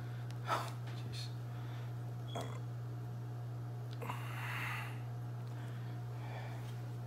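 A few small, sharp clicks and a brief rustle as hands fit parts onto a large-scale RC car's shock absorber, over a steady low electrical hum.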